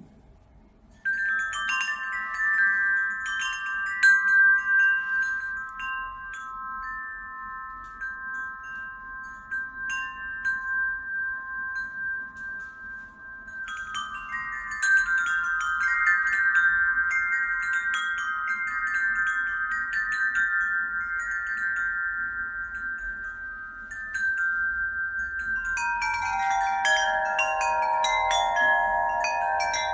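Wind chimes ringing with clear, sustained tones that overlap. The chimes are set ringing about a second in and again about halfway through, and near the end a lower-pitched set comes in, its notes stepping down in pitch.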